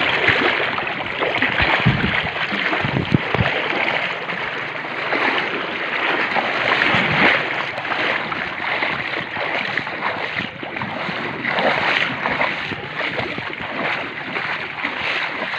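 Fast-flowing muddy river water rushing and splashing around wading legs, a steady loud wash of water noise. A few low thumps about two to three seconds in.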